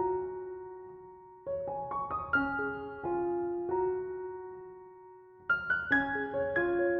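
Background piano music: gentle phrases of struck notes that ring and fade, growing fuller near the end.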